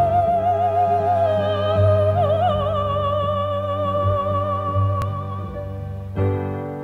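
Operatic-style background music: a long wavering vibrato melody line held over steady low accompaniment, sliding down to a lower note about two seconds in, with a new chord coming in near the end.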